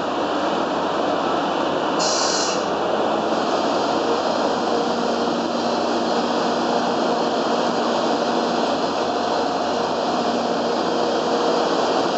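EF65 electric locomotive easing a train of coaches along a station platform at walking pace: a steady running noise with a short hiss about two seconds in and faint steady hums from about four seconds on.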